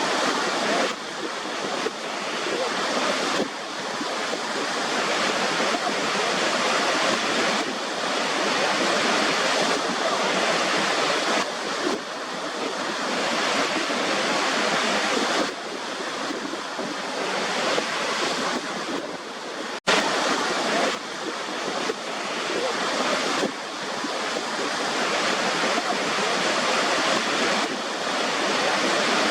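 White-noise track: a steady rushing hiss like surf, swelling and easing every few seconds. It cuts out for an instant about twenty seconds in.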